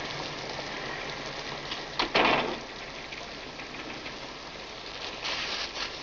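Steady hiss of heavy rain. About two seconds in there is a brief loud rattle at the glass shop door as its roller shade is pulled down.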